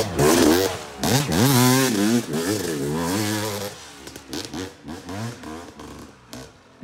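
Dirt bike engine revving hard, its pitch sweeping up and down several times, then dropping to a quieter, more distant running for the last few seconds.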